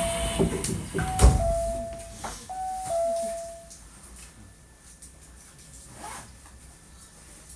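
Train door chime sounding a repeated two-note high-low tone about three times while the passenger doors close, with a heavy thud about a second in as they shut; afterwards only a quiet hum inside the Hankyu 1300 series car.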